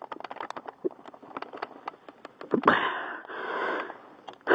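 Irregular light metal clicks from the ratchet and socket on a stuck wheel lug nut, then, about two and a half seconds in, a thump and a loud, heavy breath in two pulses from the man straining on the wrench.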